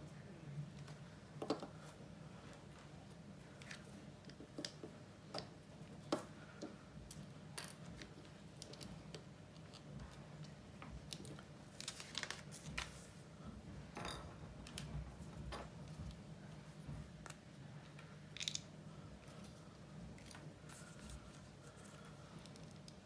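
Plastic LEGO bricks clicking and rattling as they are handled and pressed together, in scattered short clicks over a faint steady low hum. A page of the paper instruction booklet is turned about twelve seconds in.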